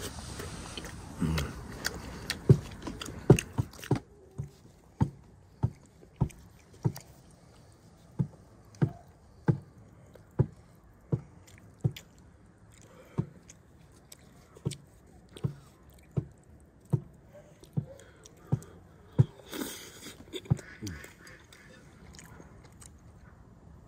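A person chewing boiled lamb with wet mouth smacks, about three every two seconds.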